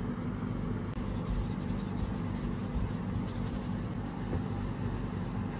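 Hands rubbing salt into raw mutton on a plastic cutting board, with faint scratchy rubbing sounds over a steady low hum.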